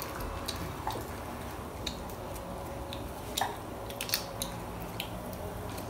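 Soft scattered clicks and light crinkles of small candy wrappers and sweets being handled at a table.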